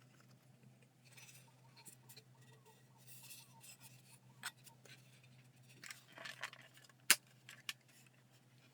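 Hard plastic parts being handled: scattered light clicks and rustling, with one sharp click about seven seconds in.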